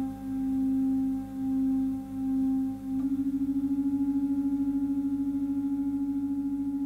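Electroacoustic drone of clarinets and live electronics: one sustained low tone with faint overtones, swelling and dipping a little under a second apart. About three seconds in it steps slightly higher in pitch and takes on a fast, even pulsing.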